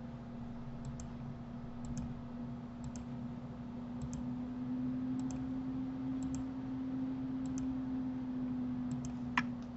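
Computer mouse clicking about once a second, each click a quick double tick of press and release, as objects are picked one after another. A steady low hum runs underneath.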